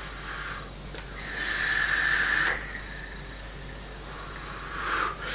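Breath of a person vaping, passing a thick cloud of e-cigarette vapour: a breathy hiss, loudest from just over a second in to about two and a half seconds, with a short click just before it and a softer breath near the end.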